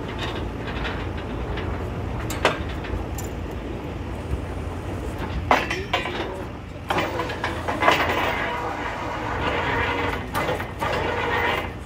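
Truck-mounted borewell drilling rig running steadily with a low rumble, with several sharp knocks from the work at the drill pipe.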